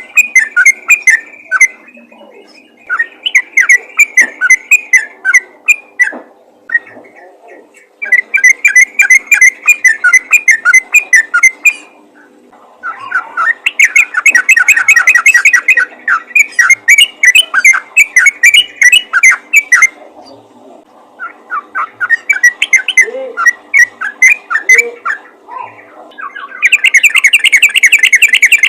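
Yellow-vented bulbul (trucukan) singing fast, rapid-fire runs of repeated chattering notes, phrase after phrase with short pauses between them. This is the lively calling song that draws other bulbuls.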